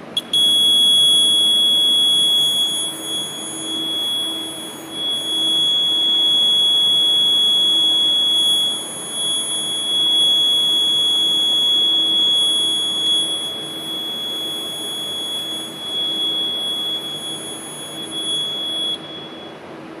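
Fire alarm control panel's built-in buzzer sounding one steady high-pitched tone, signalling a trouble condition after the loop initialization. It stops about a second before the end, when the panel sounder is silenced.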